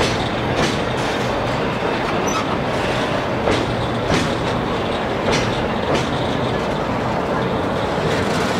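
DE10 diesel-hydraulic locomotive running under way with a steady engine drone, its wheels clicking sharply over rail joints at uneven intervals.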